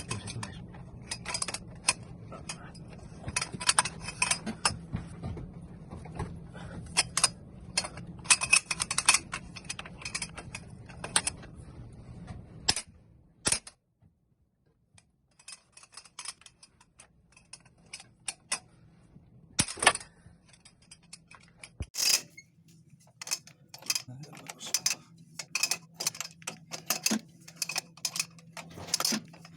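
Wrench working the seized crankshaft pulley bolt: irregular clusters of quick metallic clicks and clinks, broken by a short silent gap just after the middle.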